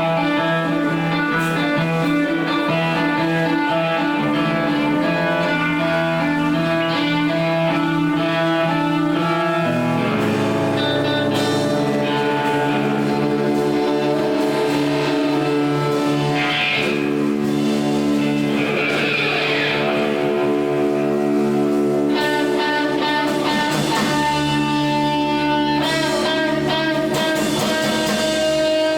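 Rock music led by guitars, with chords that change about ten seconds in and again past twenty seconds.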